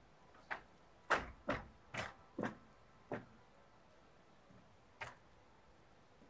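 Sharp thuds and knocks of feet striking a stage floor during a dance without music: a quick irregular run of six or seven between about half a second and three seconds in, then one more about five seconds in.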